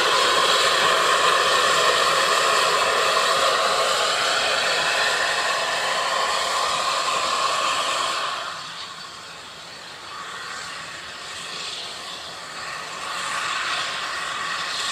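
Narrow-gauge steam locomotive and its train running, a loud steady hiss and rumble that drops away abruptly about eight seconds in. After that the train is fainter, then grows gradually louder as it comes back towards the listener near the end.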